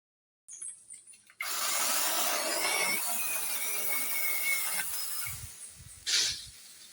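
Cordless brushless mini chainsaw cutting wood: a steady rasping saw noise with a thin whine that sags slightly in pitch, starting abruptly about a second and a half in and dropping away near five seconds. A brief swoosh follows about six seconds in.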